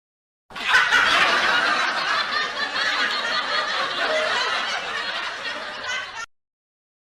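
Laughter sound effect of people laughing, starting about half a second in and cutting off sharply about a second before the end.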